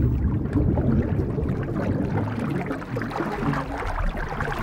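Low, rumbling underwater ambience with bubbling water noise.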